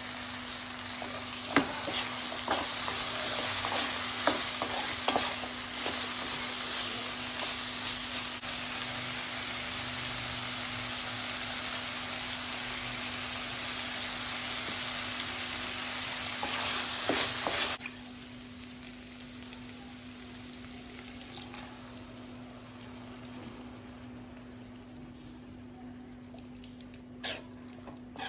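Prawns, carrots, peas and onion frying in oil in a pan, sizzling steadily while a spatula stirs them, with occasional scrapes and taps on the pan. About two-thirds of the way through, the sizzle suddenly drops to a much quieter simmering hiss.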